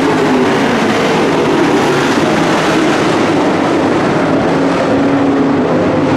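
A pack of dirt-track race trucks running at speed around the oval, several engines at once, their pitches rising and falling as they pass.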